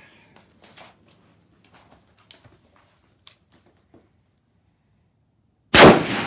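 A few faint clicks and rustles, then a single rifle shot about a second before the end, followed by a long echoing tail.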